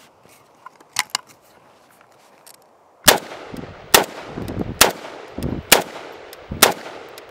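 Romanian CGR AK-47 rifle in 7.62×39 fired in slow, steady single shots. Five shots come a little under a second apart, starting about three seconds in, each with a short echo. Two faint clicks come about a second in.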